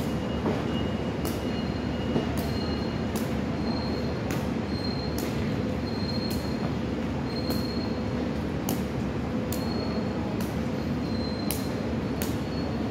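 Sharp taps of a jianzi (shuttlecock) being kicked from foot to foot between players, irregularly about once or twice a second, over a steady low background rumble.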